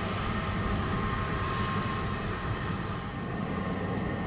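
Boeing 767-200ER's twin jet engines running at takeoff power during the takeoff roll: a steady rumble with a high engine whine over it.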